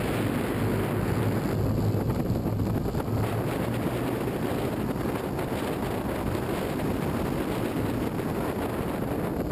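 Roller coaster train running fast on steel track: a steady rumble of wheels on the rails with a low hum, under wind buffeting the front-mounted microphone.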